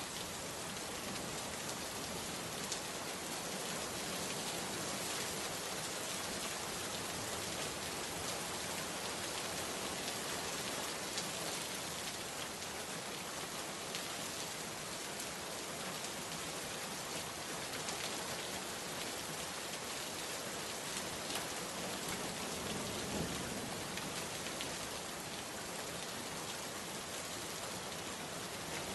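Steady rain falling on a surface, a dense continuous hiss with many individual drops ticking through it.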